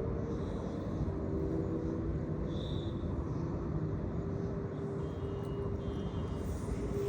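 A steady low engine drone with a constant hum.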